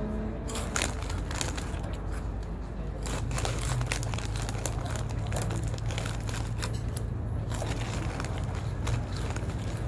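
Plastic chip bag of hot Cheetos crinkling and crackling as it is handled. A steady low hum sets in about three seconds in.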